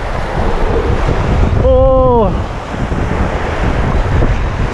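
Wind buffeting the microphone over breaking surf. A short vocal sound from a person falls in pitch about two seconds in.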